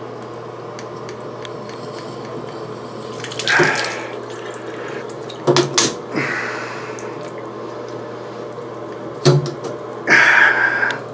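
Plastic Moen shower cartridge being wiggled and pulled out of its valve body with tongue-and-groove pliers: sharp clicks of the pliers and cartridge, and short scraping, rushing noises as it works loose, the loudest near the end as it comes free. A steady low hum runs underneath.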